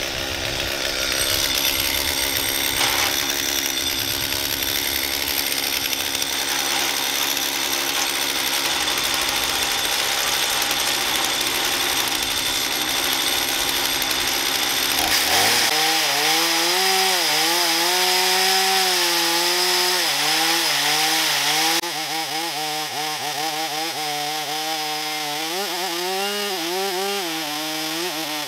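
Chainsaw running at full throttle in an Alaska chainsaw mill, ripping a black walnut log lengthwise. From about halfway the engine note stands out more clearly and its pitch wavers up and down as the saw works through the cut.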